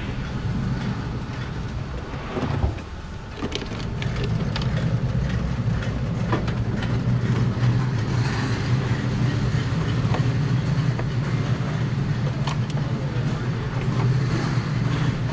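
A car engine idling steadily, with a short knock about two and a half seconds in.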